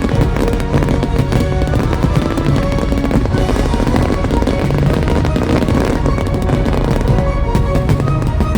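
Fireworks going off in rapid crackling pops and bangs over a loud show soundtrack of music playing throughout.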